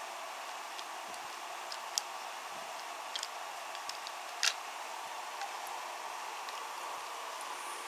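Wooden toy train wagons being handled on wooden track: a few light clicks and ticks over a steady hiss, the sharpest about four and a half seconds in.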